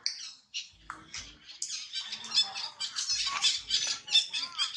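Animal calls: a rapid, overlapping run of many short, high-pitched squeaks and chirps, with a few calls that bend up and down in pitch.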